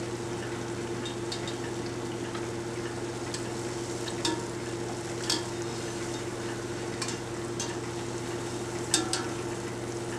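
Zeppole dough frying in deep hot vegetable oil in an enameled cast-iron pot: a steady sizzle with a few sharp clicks and pops. A steady low hum runs underneath.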